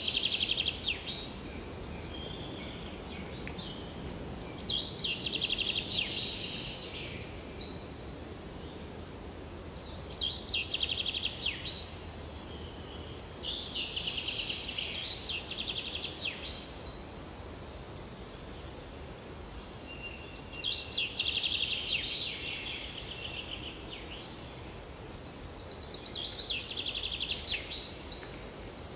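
A songbird singing short, rapidly trilled phrases, about one every five seconds, over a steady background hiss.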